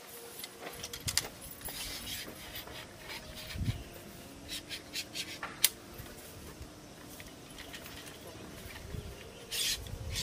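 Telescoping metal tent poles being extended and adjusted by hand: sections sliding and scraping against each other, with scattered light clicks and a sharp click about halfway through, and a short rasping scrape near the end.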